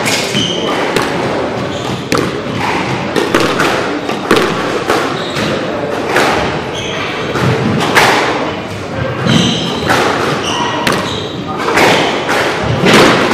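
Squash balls being struck and hitting court walls, sharp knocks echoing through the hall, with short squeaks of shoes on the wooden court floor and voices in the background.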